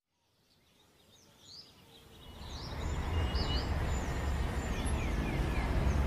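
Outdoor ambience fading in over the first few seconds: birds chirping in short, quick calls over a steady background hiss and low rumble.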